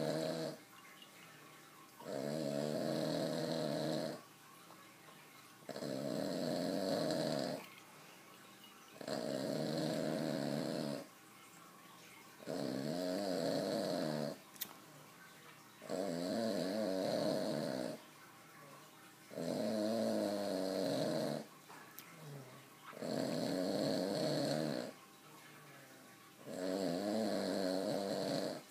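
Steady, rhythmic snoring: about nine long snores, each lasting roughly two seconds and coming one every three and a half seconds, with quiet gaps between.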